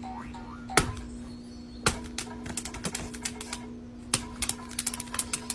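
Irregular sharp clicks and taps, like typing, coming faster in quick runs near the end, over a steady low hum.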